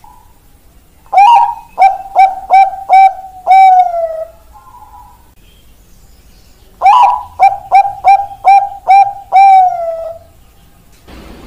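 Zebra dove (Bangkok perkutut) cooing: two song phrases, each a quick run of short coos ending in a longer, falling coo, the first about a second in and the second about seven seconds in.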